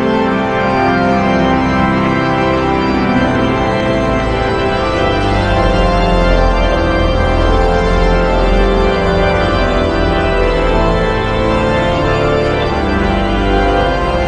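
Organ playing loud, dense held chords with many notes sounding at once; a deep bass comes in about four or five seconds in and holds.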